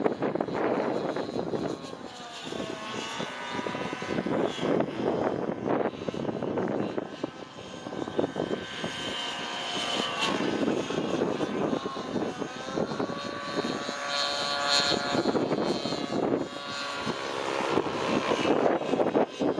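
Nitro engine of an Outrage Velocity radio-controlled helicopter running hard in aerobatic flight, with the whoosh of its rotor blades. The engine pitch slides up and down and the sound swells and fades as the helicopter manoeuvres.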